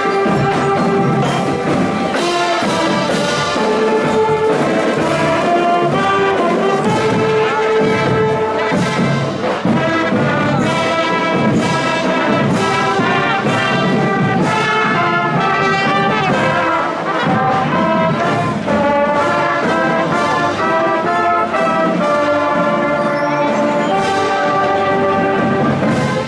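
High school marching band playing a tune on the march, with saxophones, trumpets and sousaphones playing together in sustained, changing notes.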